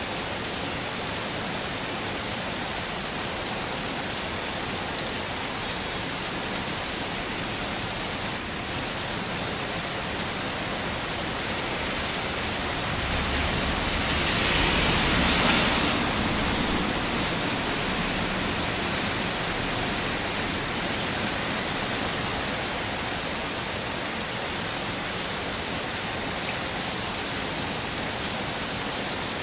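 Heavy rain falling as a steady hiss. It swells louder for a few seconds about halfway through.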